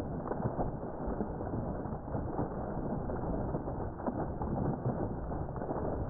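Water churning and splashing steadily as it wells up into a pond in a boil of white water, a continuous rushing noise.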